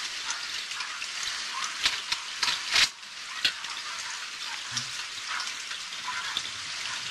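Steady crackling hiss in a police dashcam's audio, with scattered sharp clicks and a louder crackle about three seconds in.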